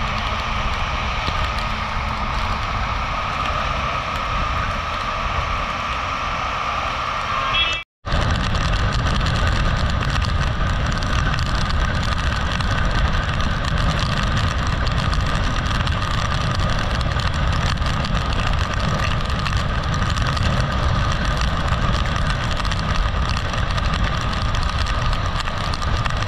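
Wind rush on the microphone of a motorcycle riding at speed on a wet highway, over the engine's steady drone and the hiss of tyres on the wet road. The sound drops out for an instant about eight seconds in.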